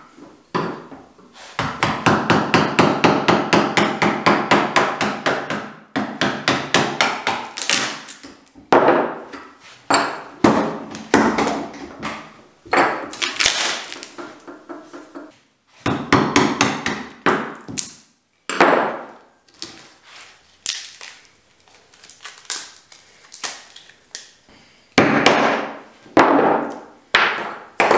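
Hammer striking a wood-handled chisel in rapid runs of sharp blows with short pauses between. The chisel is knocking apart a wooden casting mould from around a cured epoxy-resin block.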